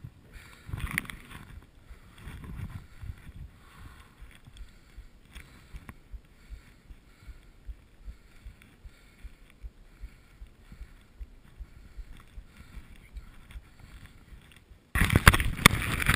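Muffled knocks and rustling of skis and poles shifting right against an action camera in the snow. A sudden loud rush of noise with sharp clicks starts near the end.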